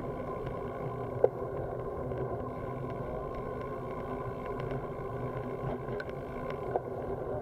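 Bicycle coasting on asphalt with steady rolling noise, and a few sharp clicks, the loudest just after a second in.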